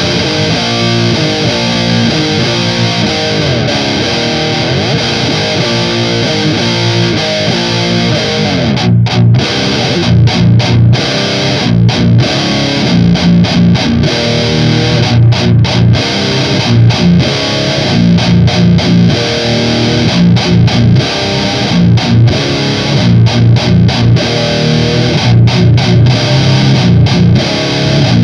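Electric guitar played through a Digitech Grunge distortion pedal: a heavily distorted riff of low chords and notes. From about nine seconds in, the riff breaks off in short stops every second or so.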